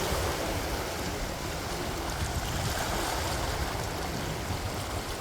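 Ocean water washing against the pier and rocks, with wind blowing across the microphone in a steady low rumble.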